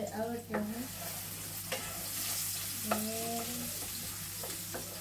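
Food sizzling in a frying pan on a gas hob as it is stirred, with the utensil clicking against the pan a few times. Two short voice-like sounds come near the start and about three seconds in.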